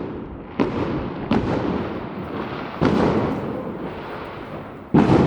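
Firecrackers going off in the streets: four sharp bangs a second or so apart, each trailing off in an echo, the loudest near the end.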